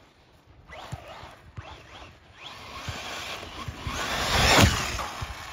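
Losi Tenacity DB Pro RC buggy driving, its electric motor and tyres giving several short rising sweeps, then a louder swell that peaks sharply about four and a half seconds in and eases off.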